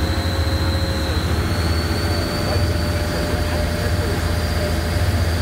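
Motorboat engine running steadily under way, a deep even hum over the rush of churning wake water, with a faint high whine held throughout.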